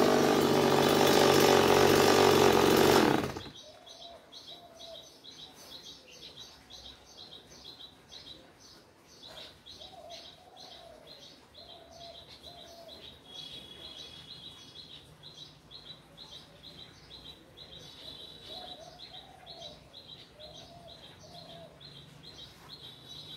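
A Stihl chainsaw running steadily, switched off about three and a half seconds in. After it stops, birds chirp in a quick, high, repeating pattern, with a few lower warbling calls now and then.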